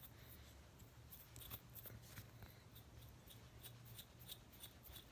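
Table salt rattling faintly inside a hollowed-out glass light bulb as it is shaken, a quick irregular run of small ticks. The salt is scouring the white coating off the inside of the glass.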